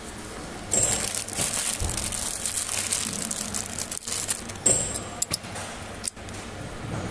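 Electric welding arc crackling and hissing, starting sharply about a second in and running for about three seconds, then shorter bursts a little later.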